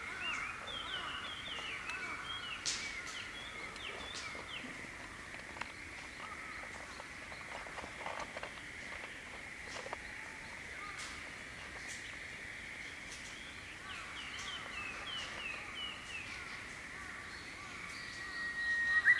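Small songbirds chirping and twittering in quick short phrases. Near the end a Japanese bush warbler starts its song with a long held whistle.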